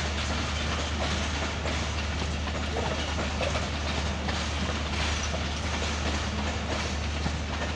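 Passenger train coaches rolling past a station platform as the train pulls in, with a steady rumble of steel wheels on the rails.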